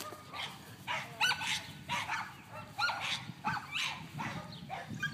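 Puppy giving a string of short, high yips and barks, about one a second.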